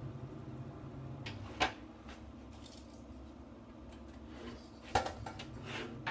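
Two sharp metal clanks from working a steel barrel smoker, one about a second and a half in and another about five seconds in, with softer handling noises between, over a steady low hum.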